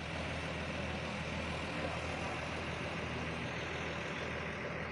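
Bus engine idling steadily, a constant low hum under an even rushing noise.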